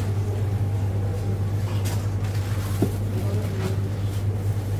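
Steady low hum of kitchen machinery, with faint background voices and a few light clicks of utensils.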